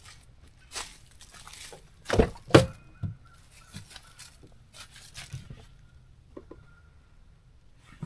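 Rustling and light handling noises, with two loud knocks in quick succession a little over two seconds in.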